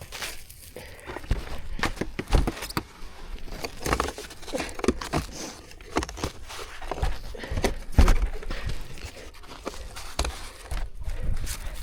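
Snow shovel working through packed snow: irregular scrapes and knocks with crunching footsteps, a heavier thud now and then.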